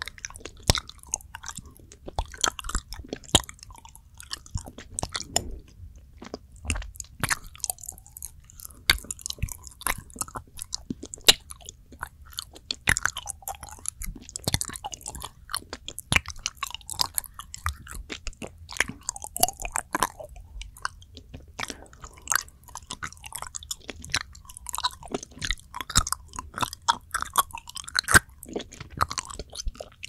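Close-miked mouth sounds of chewing soft, fudgy planet chocolate rolled around in the mouth: many irregular sharp, wet clicks of lips and tongue.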